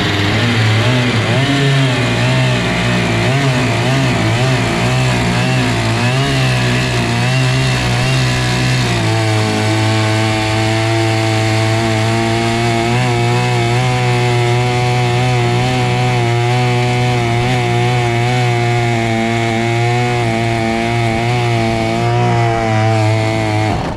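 Stihl 088 chainsaw's two-stroke engine running at high revs as a longtail boat motor, driving an outboard propeller that the builder judges too aggressive for it. The revs waver for the first several seconds, then hold steady.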